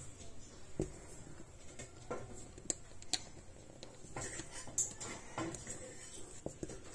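Light plastic clicks and taps from a hand turning the rinse-aid dispenser cap on a Maximus MAX-005V tabletop dishwasher's door, coming at irregular intervals.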